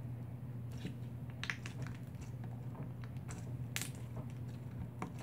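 Slime being squeezed and kneaded by hand, giving scattered wet clicks and small pops at irregular moments, over a steady low hum.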